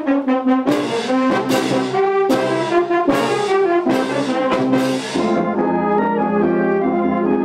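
Brass band playing: cornets, euphoniums and tubas with sharp percussive hits, then about five seconds in the hits stop and the band moves into a smoother, held chordal passage.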